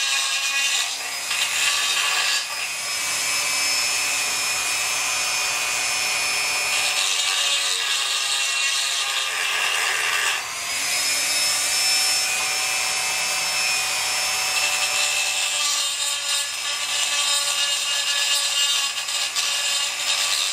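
Dremel 4000 rotary tool with a porting bit grinding out the ports of a Chinese 80cc two-stroke bicycle engine's cylinder: a steady high whine with grinding. It eases off briefly about two and a half seconds in and again about ten seconds in, then whines back up to speed.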